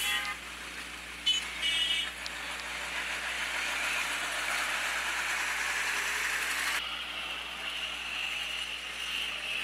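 Steady outdoor street ambience noise, with a short pitched sound about a second and a half in. The noise changes abruptly about seven seconds in, where the footage cuts to another shot.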